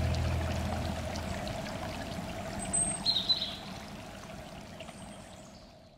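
Rushing stream water with a held musical tone under it, fading out steadily.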